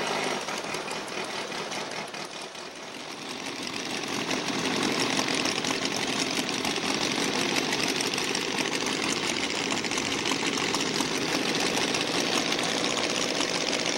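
Volkswagen-based flat-four engines of Formula V racing planes running at power: a buzzy engine drone that dips about two seconds in, then grows louder and holds steady from about four seconds in.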